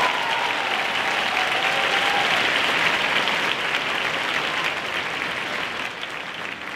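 Large audience applauding, the clapping fading over the last couple of seconds.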